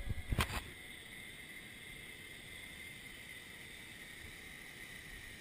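Zip-line trolley pulleys running along the steel cable as a rider comes in, a faint steady whine, after a couple of sharp knocks of gear at the very start.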